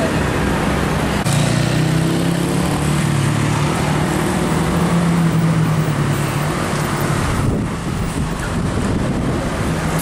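Tour buses passing on the road: a steady low engine drone that eases off about three-quarters of the way through, then road noise as a bus drives past close by.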